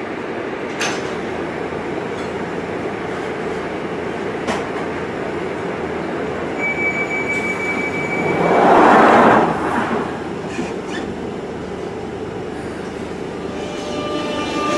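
London Underground trains at a platform: steady rolling and hissing rail noise, with a thin high wheel squeal and then a train passing on the next track, loudest about nine seconds in. Near the end a rising electric motor whine starts as a train accelerates.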